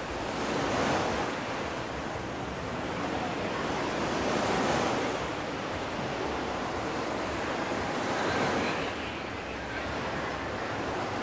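Small Black Sea waves breaking on a sandy beach, the wash swelling and easing about every four seconds, with some wind on the microphone.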